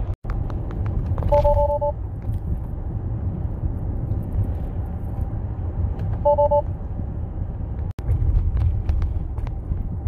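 Steady low road and tyre rumble inside a moving Tesla's cabin. Twice, about a second and a half in and again about six seconds in, the car's two-tone alert chime sounds briefly. It signals that cruise control is unavailable while the cameras are still calibrating.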